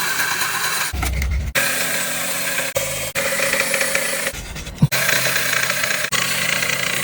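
A blade being sharpened: steady rasping of steel against an abrasive, cut into several short takes that stop and restart abruptly.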